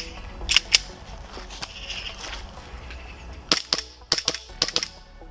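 WE R18C (Glock 18C replica) gas blowback airsoft pistol with a metal slide. A few sharp clicks of handling in the first second, then, about three and a half seconds in, a quick string of about eight shots, each a sharp crack.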